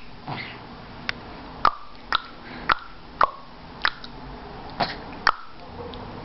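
A baby making tongue clicks with her mouth: a series of about eight sharp clicks, roughly two a second, with a short gap partway through.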